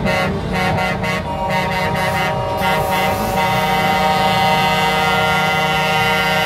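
Truck air horns held on together in a steady multi-tone chord. About three and a half seconds in, the chord changes and higher tones join.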